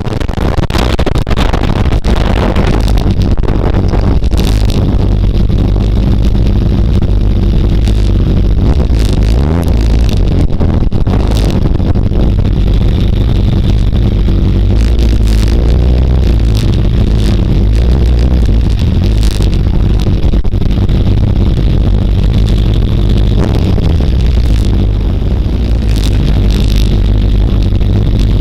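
Motorcycle engine running while riding, heard from a bike-mounted camera, its pitch rising and falling with the throttle. Near the end the engine note settles and holds steady.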